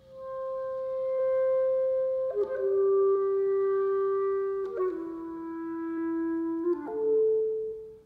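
Solo clarinet playing a slow phrase of four long held notes. The first is high, the next two each step lower, and the last, shorter note rises again. The notes swell in loudness and the phrase stops near the end.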